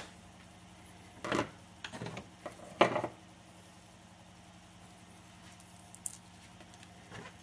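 Red 3D-printed plastic stand pieces handled and set down on a wooden desk: a few light plastic knocks, the loudest about three seconds in. Then small clicks and ticks as a sheet of stick-on rubber feet is handled, over a steady low hum.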